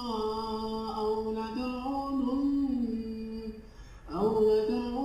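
A man's voice reciting the Quran in the melodic, drawn-out tajweed style, holding long notes that glide up and down. It breaks off briefly about three and a half seconds in, then comes back.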